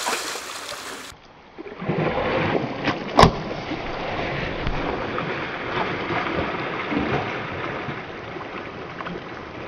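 Water splashing and churning as a large saltwater crocodile lunges up out of a pond and falls back, with a single sharp crack about three seconds in.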